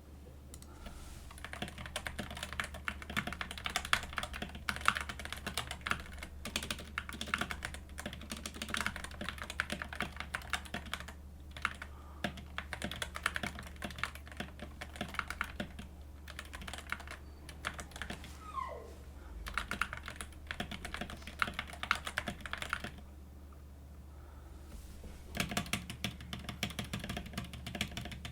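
Stock, unmodified Geek GK61 60% mechanical keyboard with Gateron Yellow linear switches being typed on continuously, with dense irregular keystroke clacks; the typing stops for about two seconds near the end and then resumes.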